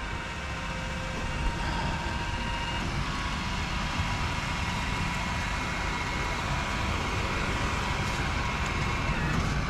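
A motor vehicle running steadily: a low engine rumble with faint steady whines over it.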